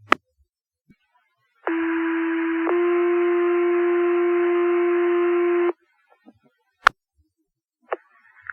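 Two-tone sequential fire paging tones over a radio channel: a first tone for about a second, then a second, slightly different tone held about three seconds before cutting off sharply. These tones set off the station's pagers ahead of the voice dispatch. A sharp click comes near the start and another near the end.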